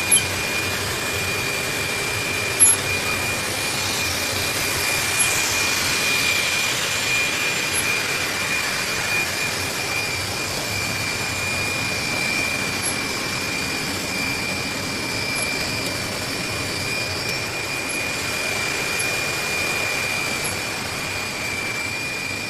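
Two-layer PE bubble film machine running: a steady mechanical rush with a constant high whine, and two sharp knocks in the first few seconds.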